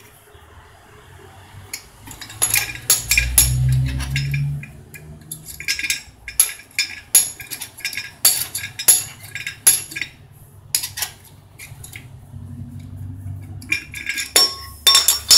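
Steel pipe-flaring tool being handled and unscrewed on a copper refrigeration tube: a string of sharp metallic clicks and clinks, some in quick runs, from the clamp bar and screw yoke.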